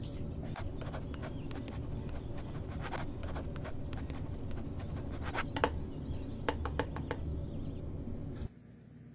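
Ballpoint pen writing on a spiral notebook's paper: a run of short scratching strokes over a steady low hum, which drops away near the end.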